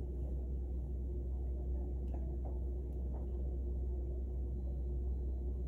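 Steady low hum and rumble of an exam room's ventilation, with a faint steady tone above it and a few soft clicks about two to three seconds in.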